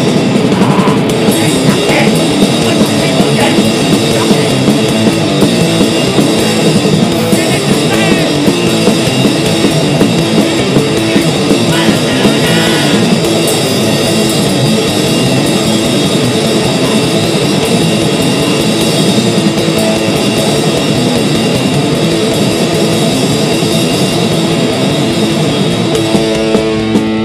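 Thrashcore band playing live: fast, heavily distorted electric guitars over rapid, pounding drums, loud and dense.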